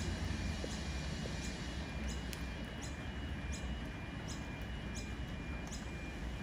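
Low, steady rumble of a diesel railcar pulling away, with light footsteps and the faint squeak of a wheeled shopping trolley ticking along at about one step every two-thirds of a second.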